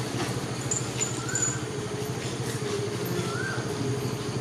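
A lorry's engine idling steadily, with a short rising-and-falling chirp twice, about two seconds apart.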